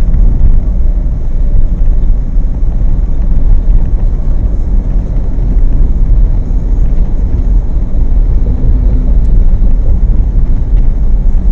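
Steady low rumble of road and engine noise inside a moving car's cabin, on a highway behind a lorry.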